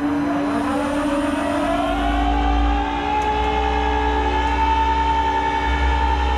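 Rollback tow truck's engine revving up to drive the hydraulic winch, its pitch rising over the first few seconds, holding high and steady, then dropping right at the end as the load comes off.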